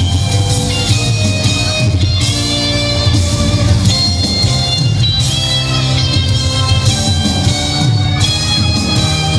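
Loud recorded pop-rock music with guitar, played steadily over a PA system.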